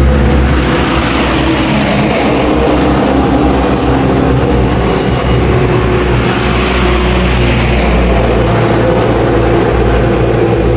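Heavy road vehicles, buses or trucks, passing close by on a highway: a steady low engine drone with tyre noise that swells and fades twice. There are a few short high hisses.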